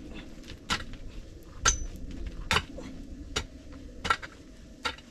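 A long-handled metal digging tool striking stony, rubble-filled earth, six sharp clinks at about one a second, one of them with a brief metallic ring.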